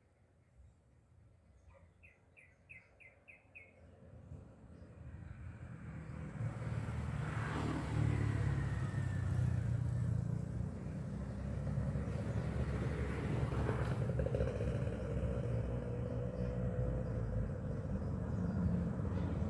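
A bird chirps a quick series of about six notes, then a low vehicle engine rumble builds over a few seconds and runs on steadily.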